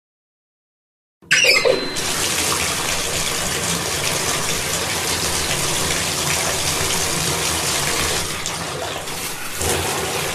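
Shower running: a steady hiss of spraying water that starts after about a second of silence.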